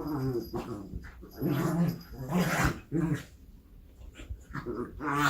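A dog growling in several short, low bursts, with a pause in the middle.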